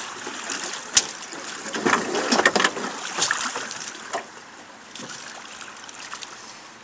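River water sloshing around a drift boat, with a sharp knock about a second in and a louder spell of splashing and knocking from about two to three seconds in.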